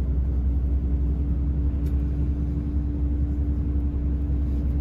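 Airport apron bus driving, heard from inside the cabin: a steady low engine and road rumble with a constant hum over it.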